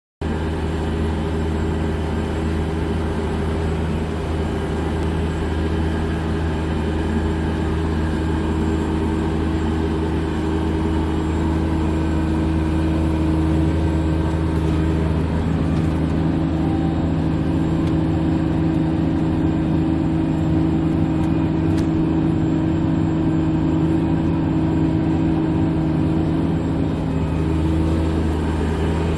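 Case IH Quadtrac 535's 15-litre six-cylinder diesel running steadily under ploughing load, a constant deep drone with a few steady tones above it; it gets slightly louder about twelve seconds in.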